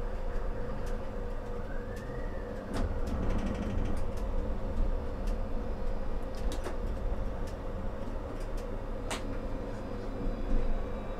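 Electric tram heard from the driver's cab as it pulls away from a green light and runs along the track: a steady low rumble under a constant hum, with a short whine that rises and falls about two seconds in. Scattered clicks and knocks come from the wheels and the cab fittings.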